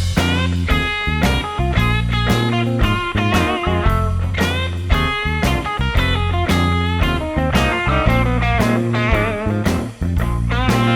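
Outro music: a blues-rock tune led by guitar, with bass and a steady beat.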